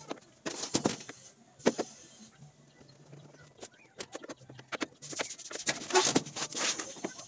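Plastic back cover of a Sharp CRT television being worked loose: sharp clicks and knocks of the screwdriver and plastic, then, about five seconds in, a denser stretch of plastic scraping and rattling as the housing is pulled off.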